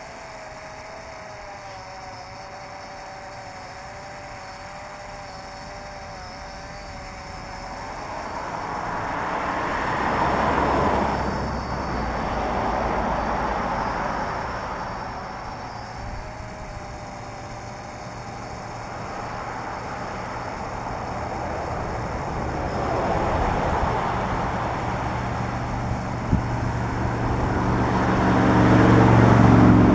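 Road vehicles passing by, their tyre and engine noise swelling and fading several times, with a low engine hum loudest near the end. A faint wavering whine runs through the first several seconds before the first vehicle approaches.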